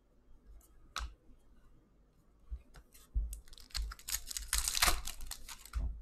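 Hockey trading cards handled by hand: a few separate card clicks and flicks, then about three seconds of quick, crisp rustling and clicking as cards and their packaging are shuffled and pulled apart.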